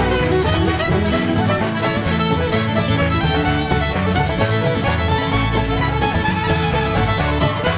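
Instrumental break of an Irish folk song: fiddle carrying the tune over strummed guitar, with a steady beat.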